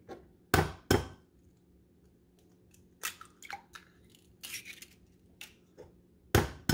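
Eggs tapped against the rim of a glass bowl to crack them: two sharp knocks about half a second in, softer clicks and taps of shell in the middle, then two more sharp knocks near the end as the next egg is cracked.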